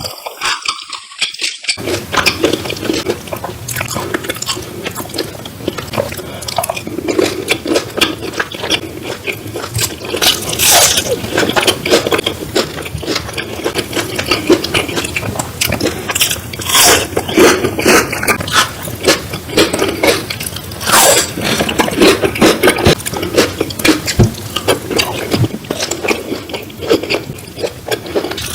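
Close-miked eating: wet chewing and slurping, with many short smacks and clicks.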